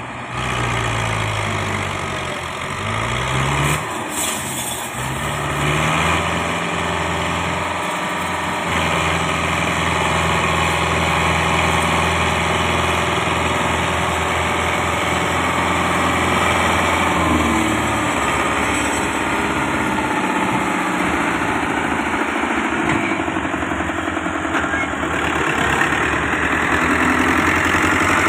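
Diesel engines of a Daewoo wheeled excavator and farm tractors running as the excavator loads soil. The engine note rises and falls over the first few seconds, then holds a steady drone.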